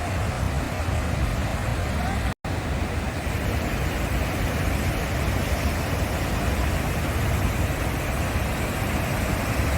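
Heavy current of river water rushing through a barrage, a steady loud rush with a deep low rumble. It drops out for an instant a little over two seconds in.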